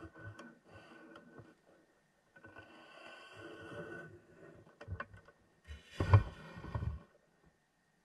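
Knocks, scrapes and heavy thumps picked up underwater by the camera as a large shark bumps and rubs against the baited camera rig and its bait arm, stirring up the sand. Scattered knocks come early, and a cluster of loud thumps comes about six seconds in.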